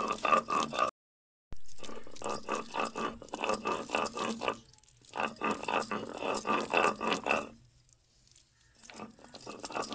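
Stone roller (batta) grinding boiled raw-mango pulp on a grooved stone slab (sil), scraping in quick repeated strokes. The strokes break off sharply about a second in and pause briefly about three-quarters of the way through.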